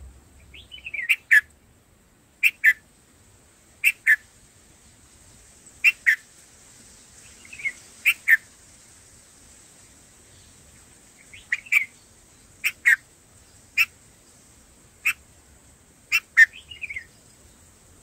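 Red-vented bulbul calling: short, sharp notes, mostly in pairs, every second or two, with a few quick falling warbled phrases mixed in.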